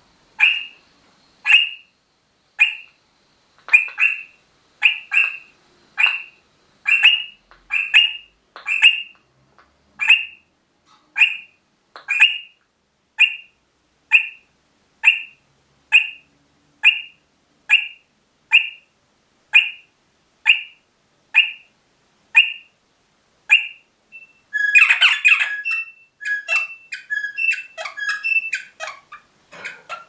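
Eastern rosella parrot calling: a short sharp note repeated about once or twice a second, sometimes doubled. Near the end it breaks into a louder burst of rapid, mixed chattering notes.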